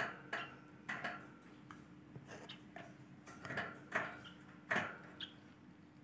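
A run of short, sharp clicks at irregular intervals, two or three close together at times, over a faint steady hum.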